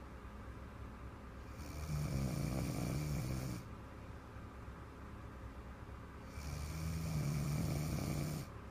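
A little girl snoring: two long snores, each about two seconds, nearly five seconds apart, with quieter breathing between them.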